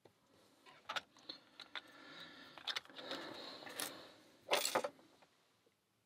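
Hands handling a disassembled brass tubular lock and small metal tools: a few light metal clicks, a stretch of scraping and rustling, then a single louder knock about four and a half seconds in.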